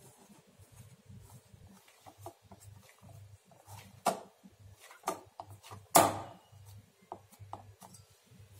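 Hands kneading wheat-flour dough in a stainless steel bowl: soft rubbing and squishing, with three sharp knocks of the dough against the bowl about four, five and six seconds in, the last the loudest.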